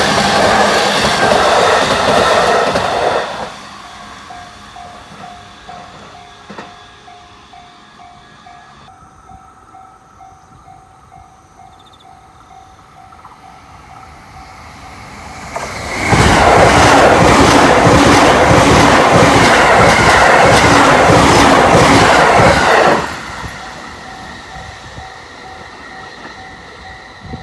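Joban Line trains passing a level crossing at high speed. The loud rush of one train dies away in the first three seconds, leaving the crossing's warning bell ringing steadily about twice a second. Another train rushes through for about seven seconds from around sixteen seconds in, with a rapid clatter of wheels over rail joints, and then the bell is heard again.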